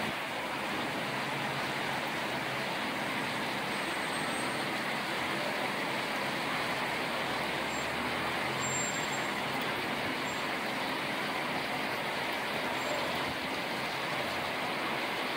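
Steady, even wash of city traffic noise rising from the streets below, a constant hiss and hum with no single vehicle standing out.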